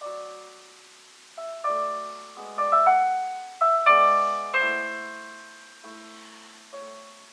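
Piano played: a slow phrase of struck notes and chords, each left to ring and die away, with short gaps between. The loudest chords come about three to four seconds in, and two softer notes follow near the end.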